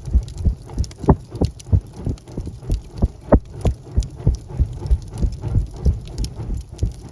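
Wood fire crackling in a fireplace: irregular short pops and snaps several times a second over a low, soft rumble of burning.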